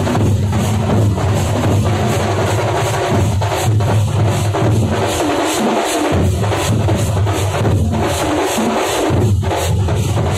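Thampola (thambolam) percussion troupe playing a loud, heavy beat on large drums, a deep booming bass under rapid, evenly repeating strokes.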